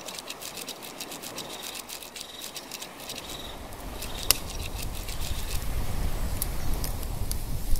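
Sound-effect bed of scattered crackling clicks with one sharp snap about four seconds in, under a low rumble that swells and grows louder from about three seconds in.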